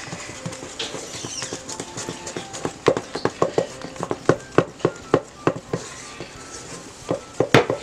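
Wooden spoon stirring glue and shaving cream in a stainless steel bowl. From about three seconds in it knocks irregularly against the bowl's side, several times a second, with the loudest knock near the end.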